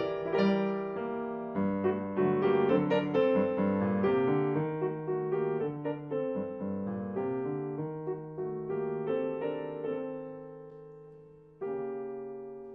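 Fazioli grand piano played solo in a classical piece: a busy passage of quick, overlapping notes that slows and fades about ten seconds in, then a chord struck near the end and left to ring and die away.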